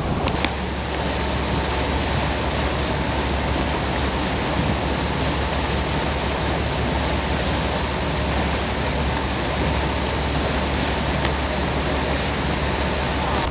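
Passenger boat under way: a steady rushing of wake water and wind over a low, even engine drone.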